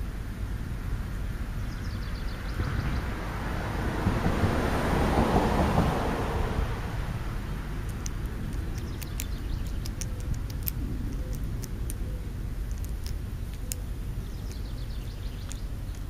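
Steady low outdoor rumble with a passing vehicle swelling and fading a few seconds in. In the second half, crows' beaks tap and click sharply as they peck at food close to the microphone.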